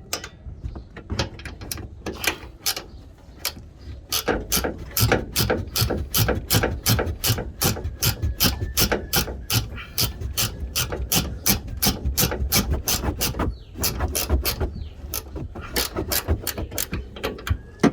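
Hand ratchet wrench clicking steadily as loosened bolts are spun off, several clicks a second with a couple of short pauses.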